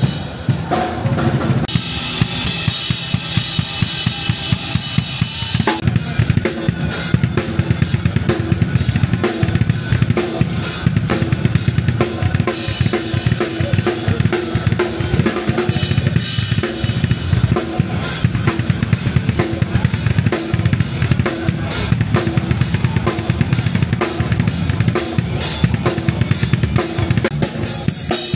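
Background music with a steady drum-kit beat: bass drum, snare and cymbals.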